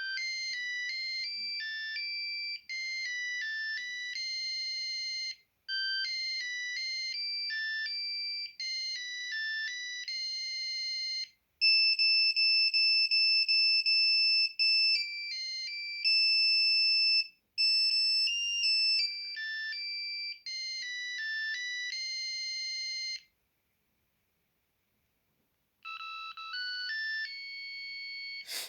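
Late-1990s Samsung SGH mobile phone playing its built-in ringtone melodies: one electronic beeped note at a time in short, repeating phrases, louder in the middle. The tune stops about 23 seconds in, and after a pause of a couple of seconds a different melody starts, the next ringtone in the list. A brief click comes at the very end.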